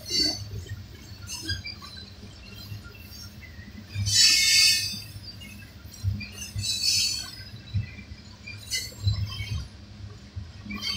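Loaded coal hopper cars of a long freight train rolling past with a steady low rumble, broken by several high-pitched metallic squeals and clinks from the wheels and rails, each about a second long, the loudest about four seconds in.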